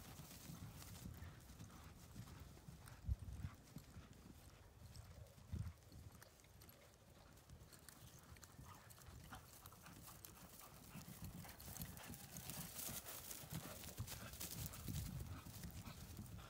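Hoofbeats of two ridden horses on dry turf, soft and distant, growing louder near the end as they come back. There is a sharp knock about three seconds in.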